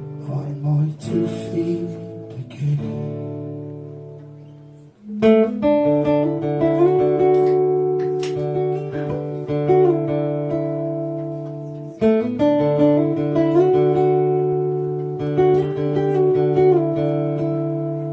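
Acoustic guitar playing an instrumental passage of a song: chords left to ring while a picked melody moves over them. A fresh chord is struck about five seconds in and again about twelve seconds in, each ringing out and slowly fading.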